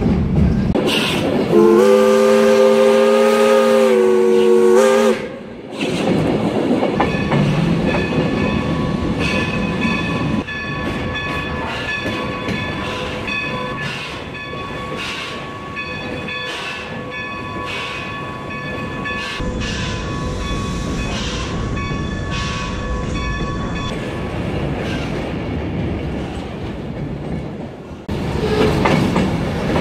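Steam locomotive whistle blown in one long blast of about three and a half seconds, several tones sounding together. Then the steady running of the train, with a regular beat.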